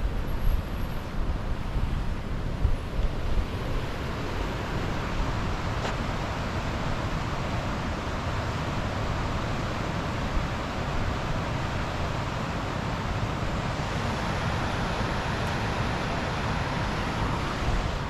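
Steady rushing of the Virgin River flowing alongside the trail, with wind gusting on the microphone for the first few seconds.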